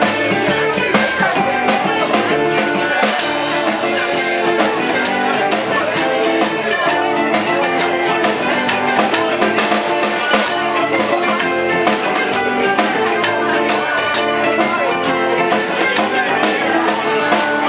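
Live acoustic band playing a tune on acoustic guitar, mandolin, upright double bass and a small drum kit. The drumming gets busier about three seconds in.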